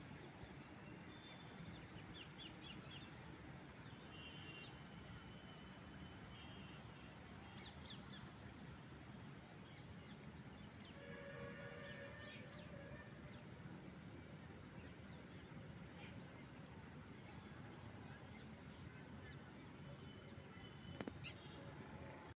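Faint outdoor background with birds calling now and then: short chirps throughout and a longer call about halfway through.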